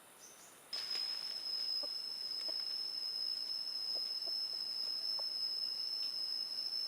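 A steady, high-pitched insect drone, like cicadas or crickets, starting abruptly under a second in and holding one unbroken tone, with a few faint ticks beneath it.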